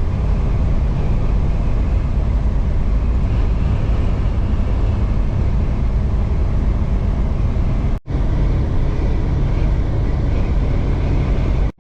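Semi truck driving on the highway, heard from inside the cab: a steady, loud drone of engine and road noise. It drops out for an instant about eight seconds in.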